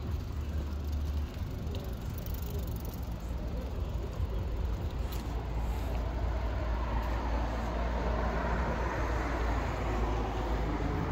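City street traffic: a steady low rumble, with the noise of a passing vehicle swelling in the second half.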